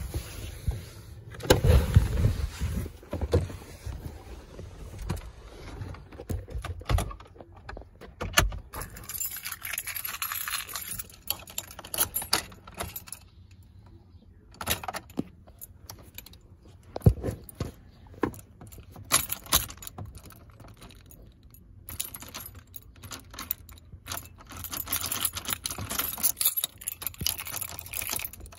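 Keys jangling on a key ring as the ignition key of a 2001 Ford Expedition is worked again and again, with sharp clicks and no starter cranking or engine running. It is a no-start with no power at the ignition, put down to a dead battery.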